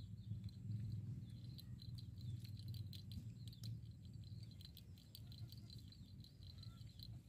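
Faint outdoor ambience: insects chirping in a steady, pulsing high band, with scattered light clicks over a low steady rumble.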